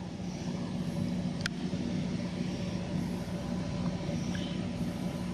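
Agricultural spray drone's rotors humming steadily in flight, with a single short click about a second and a half in.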